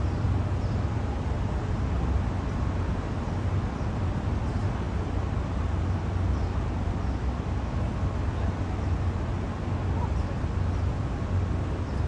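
Steady low rumble of outdoor city background noise, with a few faint, brief high notes scattered through it.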